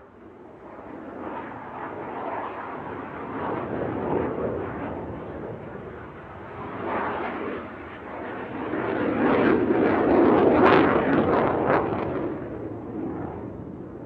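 Jet aircraft roar that swells up from silence, dips twice, and is loudest about ten seconds in, with crackling through the peak, then fades away near the end.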